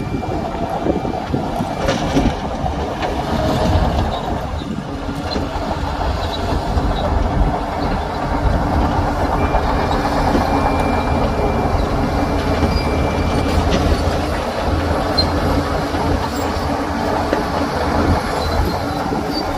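Crawler bulldozer's diesel engine running steadily with a low rumble, mixed with the rattle and clank of its steel tracks.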